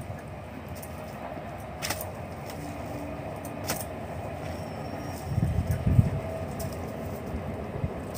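Kodal (short-handled hoe-spade) digging into soil to lift taro corms: a couple of sharp clicks, then a cluster of dull thuds a little past halfway, over a steady low rumble.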